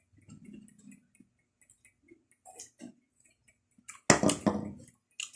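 Close-up mouth sounds of a person chewing raw leafy greens: wet clicks and soft munching, with a louder burst of just under a second about four seconds in.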